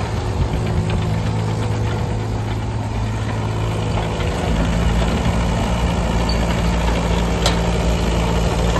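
Yanmar B25V mini excavator's diesel engine idling steadily, its low note getting a little heavier about halfway through, with one sharp click near the end.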